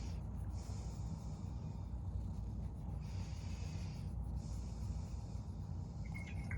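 Domestic shorthair cat purring close up: a steady low rumble, with a breathy hiss that swells and fades with each breath in and out. A couple of small clicks near the end.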